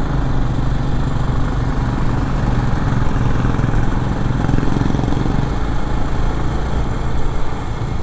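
Bajaj Avenger 220 cruiser's single-cylinder engine running steadily at road speed, heard from the rider's seat. A constant rushing wind and road noise runs under it.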